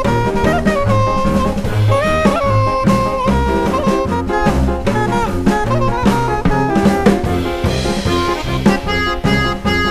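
Background music: upbeat jazz with saxophone or brass melody over bass and drum kit.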